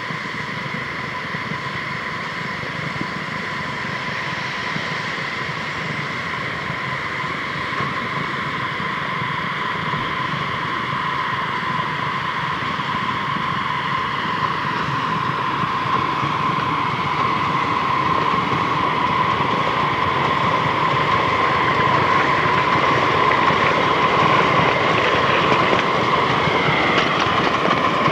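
Ridable live-steam miniature steam locomotive running on its track and hissing steam, with a steady high tone through the hiss. It grows gradually louder as the engine comes closer.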